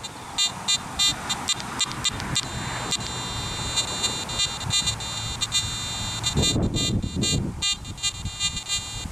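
Garrett AT Max metal detector's audio as the search coil is swept over a small sample of alluvial wire gold and flakes, threshold set negative and sensitivity all the way up: a thin high hum and regular clicks, with the target response coming through most strongly about six and a half seconds in.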